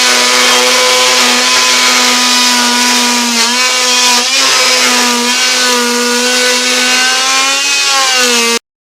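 Electric power tool running steadily as it cuts into a wooden panel, its buzzing pitch sagging briefly twice as it bites, then stopping abruptly near the end.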